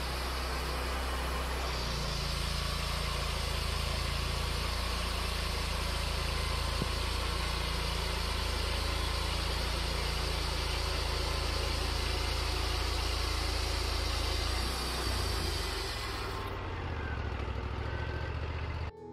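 Wood-Mizer portable band sawmill running, its engine steady under load while the band blade cuts through a log with a hiss of sawing. About 16 seconds in the sawing hiss falls away as the blade leaves the cut, and the engine runs on.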